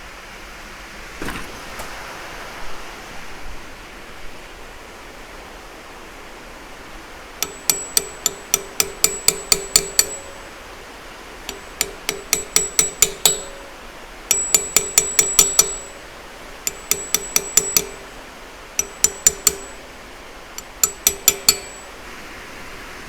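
A hammer tapping a steel punch against metal cylinder parts. The strikes come in six quick runs of about four or five a second, each strike ringing, with a few faint knocks before the first run.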